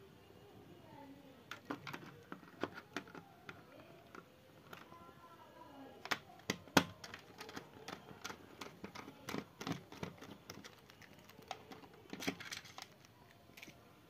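Irregular clicks, taps and knocks of metal computer parts being handled, with screws, screwdriver and the sheet-metal chassis of an all-in-one PC. The sharpest click comes about seven seconds in.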